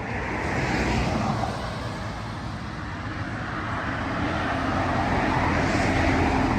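Traffic on a busy main road: cars passing close by, one swelling about a second in and another building near the end.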